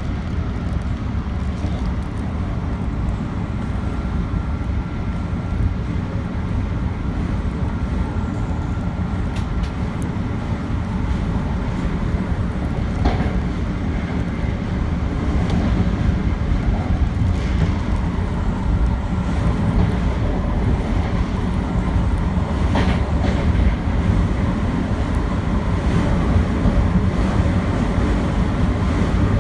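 Metro-North commuter train running on the rails, heard from inside the front car: a steady low rumble of wheels and running gear, with a couple of sharp clicks from the track and growing a little louder after about fifteen seconds.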